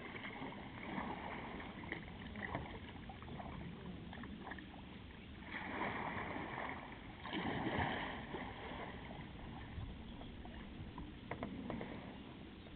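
Kayak paddles dipping and pulling through calm river water: soft swishes and small splashes, with two louder swishes around the middle.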